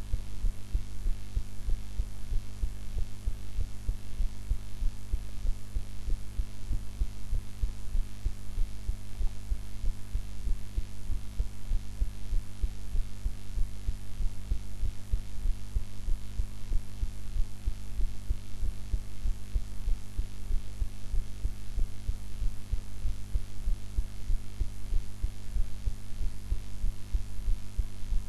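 A person's heartbeat picked up close against the chest: an even rhythm of low thuds repeating for the whole stretch, over a steady hum.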